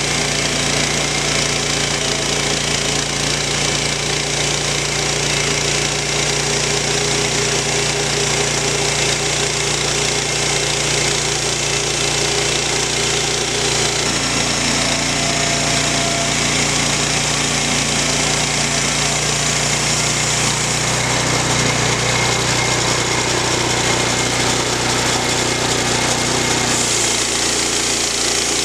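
Gasoline engine of a Woodland Mills portable bandsaw mill running steadily while its blade cuts lengthwise through a pine log. The engine note drops slightly about two-thirds through and again near the end.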